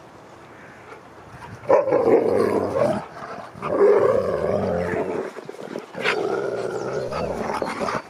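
Two huskies growling and grumbling at each other in rough play. The growling comes in three long bouts after a quieter first second and a half.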